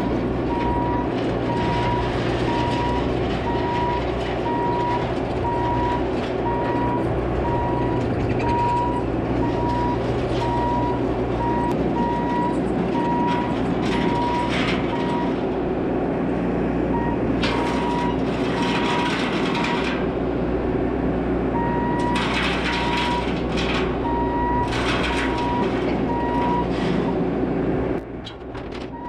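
Bobcat T650 compact track loader's diesel engine running steadily while its backup alarm beeps about once a second as it reverses. The beeping pauses twice, there are a few short spells of harsher clatter, and the engine noise drops sharply near the end.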